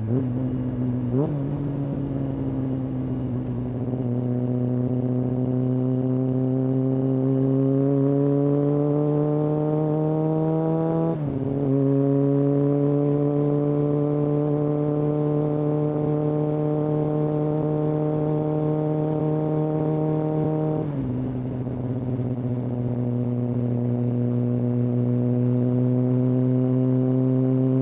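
Kawasaki ZX-6R inline-four running through a Hindle aftermarket exhaust while the bike rides and gently accelerates; the pitch climbs slowly, drops sharply at upshifts about 11 and 21 seconds in, then climbs again.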